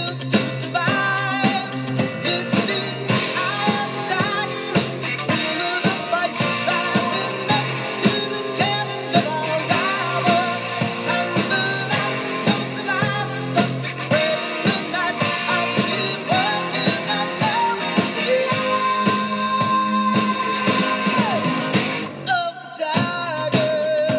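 Rock music with a singing voice and a steady beat, breaking off briefly near the end.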